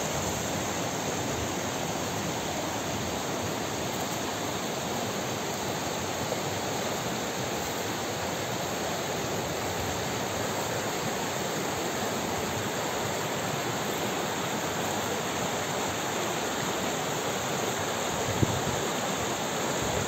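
Fast spring-fed mountain stream rushing over rocks: a steady, unbroken rush of white water.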